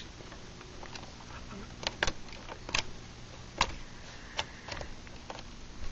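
Scattered sharp plastic clicks and knocks from handling a Macintosh PowerBook 190cs, working its fold-out feet, which are stiff to get down.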